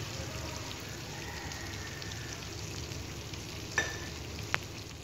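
Sliced white onion sizzling in a wok, a steady frying hiss as it sautés toward translucent. Two short sharp clicks near the end.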